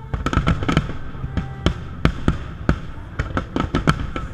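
Aerial fireworks shells bursting overhead: an irregular volley of sharp bangs and crackles, coming thick and fast in the second half.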